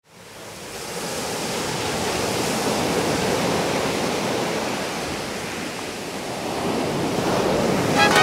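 Ocean surf: waves breaking and washing up onto a beach, fading in from silence at the start and swelling again near the end.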